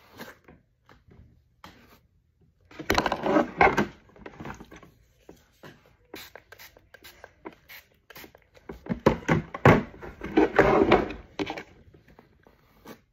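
Plastic paddle hairbrush dragged through damp hair: scratchy bristle strokes, with two louder stretches, one about three seconds in and one around ten seconds in.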